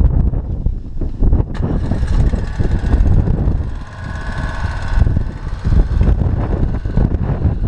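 Wind buffeting the microphone, with the buggy's Suzuki RF600 inline-four motorcycle engine running underneath. The engine note comes through most clearly in the middle, then fades back under the wind.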